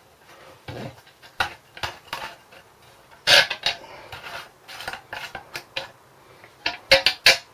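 Irregular metallic clinks, clicks and knocks of an old mower's fuel tank and small metal parts being handled and taken off to drain the old fuel. The loudest clank comes about three seconds in, and a quick run of clicks comes near the end.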